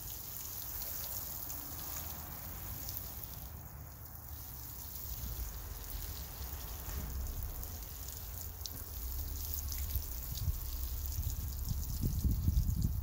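A fine shower of water from a watering rose pattering steadily onto straw and grass-clipping mulch in a raised garden bed, sounding like rain. A low rumble builds up near the end.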